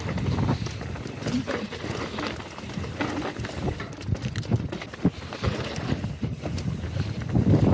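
Wind buffeting the microphone as a mountain bike is ridden down a dirt trail, with scattered clicks and knocks from the bike rattling over the ground. It eases off in the middle and picks up again near the end.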